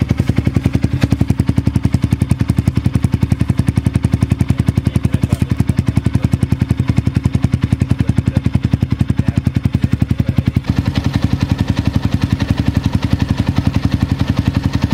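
Yamaha MX King single-cylinder four-stroke engine idling steadily through an aftermarket Akrapovic-style slip-on racing muffler, its exhaust pulses even and loud. The tone shifts a little about eleven seconds in.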